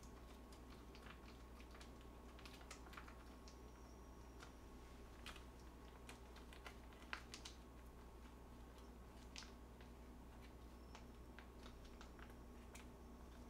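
Faint, scattered crinkling and clicking of a plastic sauce pouch being squeezed and handled, with one sharper click about seven seconds in, over a low steady hum.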